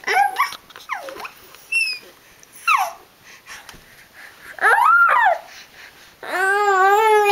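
Baby making high-pitched squealing and whining noises: several short squeals that slide up and down in pitch, then a longer wavering whine near the end.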